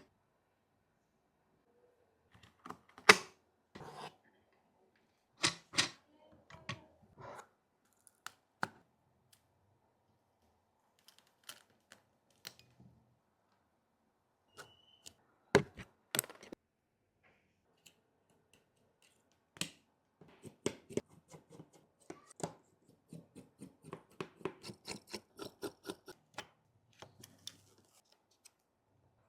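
Hand tools and parts clicking and tapping against a smartphone during a back-glass repair, in irregular sharp clicks with pauses between. The sharpest come about three seconds in and near the middle, with a quick run of light clicks in the last third.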